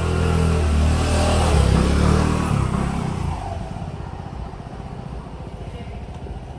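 Small delivery motorbike's engine passing close by and riding away, loudest about two seconds in, then fading.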